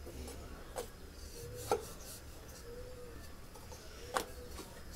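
Handling of paratha dough and a wooden rolling pin on a steel rolling board: three sharp taps a second or two apart, with fainter handling sounds between them.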